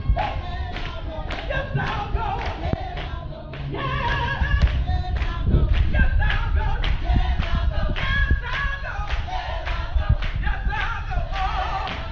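Gospel praise singing: a woman sings into a microphone, with other voices joining in, over a steady beat of sharp strokes about two to three a second and heavy low thumps.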